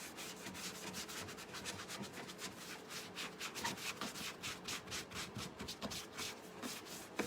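A sponge rubbed and dabbed over wet paint, quick repeated scrubbing strokes about three or four a second, working the paint in before it dries.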